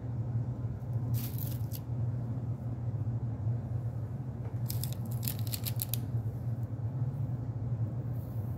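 Dry meringue cookies being handled on a parchment-lined baking tray: two brief spells of crisp paper crackling, about a second in and again around the middle. A steady low hum runs underneath.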